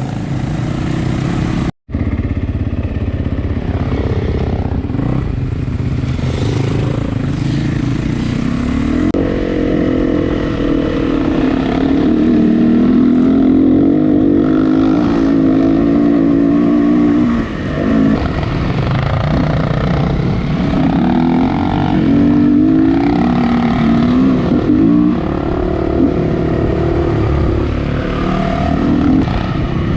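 Dirt bike engine running hard off-road, its pitch rising and falling with the throttle. The sound drops out once, briefly, about two seconds in.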